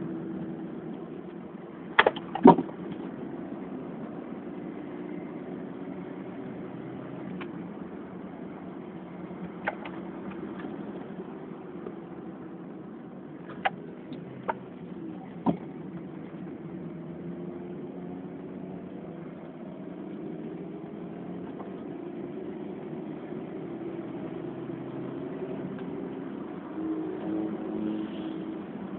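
Nissan car with a 1.4-litre engine running at track speed, heard from inside the cabin, its pitch drifting up and down through the lap. A few sharp knocks cut in: two close together about two seconds in and three more a little past the middle.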